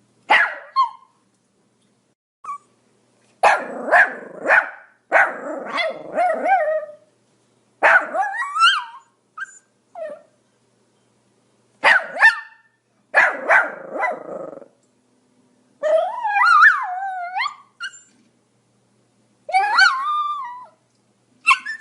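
Pomeranian barking in short clusters of quick, high-pitched barks with silent pauses between them. About two-thirds of the way through comes a longer whining yelp that slides up and down in pitch.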